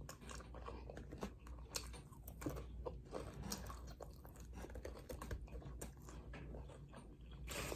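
A person chewing a mouthful of glazed donut and fried chicken close to the microphone: faint, irregular wet smacks and crunchy clicks.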